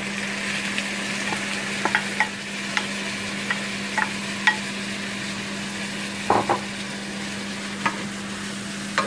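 Shrimp sizzling in butter in a frying pan, stirred with a wooden spatula that gives scattered sharp knocks against the pan, the loudest a pair about six seconds in. A steady low hum runs underneath.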